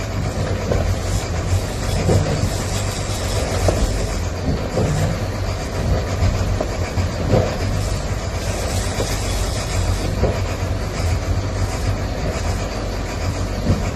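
Fishing boat's engine running with a steady low drone, heard from the wheelhouse, under a wash of wind and sea noise. A few dull knocks come every couple of seconds.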